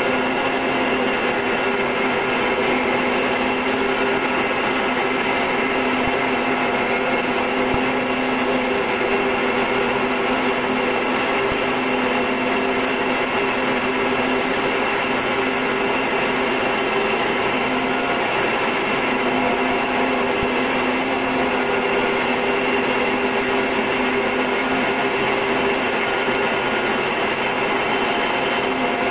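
Short Tucano's Garrett TPE331 turboprop engine and propeller running steadily in flight: a constant drone with several held tones over a broad hiss.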